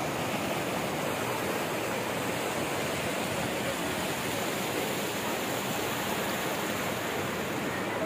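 Steady rush of a fast mountain river churning white over boulders in rapids.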